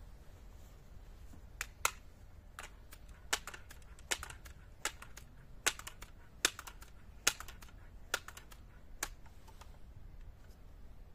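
Daisy 880 Powerline's forend pump arm being worked to charge the air for a shot, a sharp clack at each stroke, about ten at a steady pace of roughly one every 0.8 seconds, stopping about nine seconds in.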